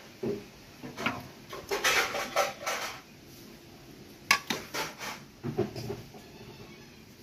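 A metal spoon clinking and scraping against soup bowls and a metal tray in short, irregular bursts as toppings are spooned onto the bowls. The clatter is busiest a second or two in, with a sharp clink about four seconds in and a few more shortly after.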